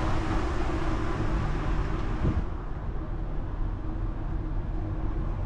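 Wind buffeting the camera's microphone on a ship's open deck at sea, a steady low rumble with a faint hum under it; the higher hiss falls away about two and a half seconds in.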